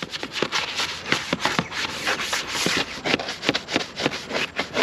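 A brush scrubbing out an animal's water container in quick, uneven strokes.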